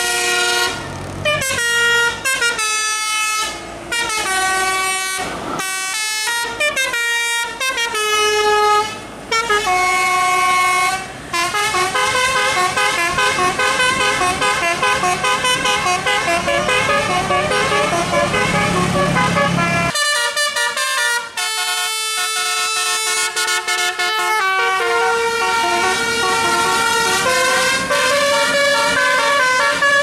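Tourist bus's musical 'telolet' air horns with roof-mounted trumpets, playing a fast tune of stepped horn notes over the bus engine's running. About twenty seconds in, the engine rumble drops away and another quick horn tune follows.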